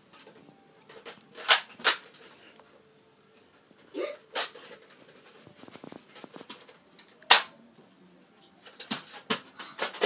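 Toy foam-dart blaster being cocked and fired: a handful of sharp clicks and pops spread out, a pair about a second and a half in, the loudest a little past halfway, and a quick pair near the end.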